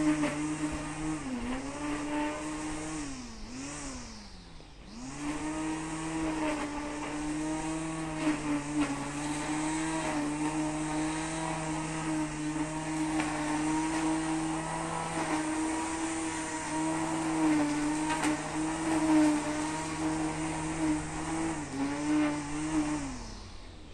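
Brush cutter engine running at high revs, its pitch dipping briefly a few times as the throttle is eased, most deeply about four seconds in, then winding down just before the end.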